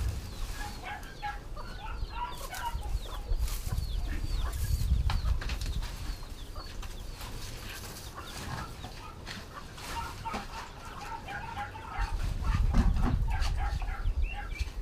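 Chickens clucking and peeping, many short calls, over rustling and clicking as grass is pushed into a wire-mesh feeder.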